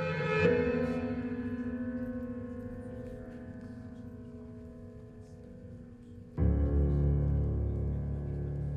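Music played over a Gryphon high-end stereo system: a sustained chord swells and slowly fades, then a new, louder chord with deep bass comes in suddenly about six seconds in and rings on.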